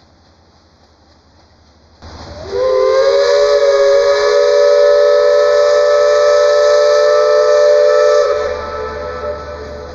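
Steam whistle of a historic paddle steamer: a hiss of steam about two seconds in, then one long blast of several tones sounding together, sliding up in pitch as it starts. The blast falls away sharply about eight seconds in, leaving a fainter trailing tone. It is blown as the steamer pulls away from the landing stage, a departure signal.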